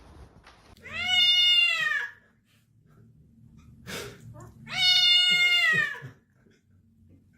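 A cat meowing twice, two long drawn-out meows that rise and then fall in pitch, with a short tap just before the second.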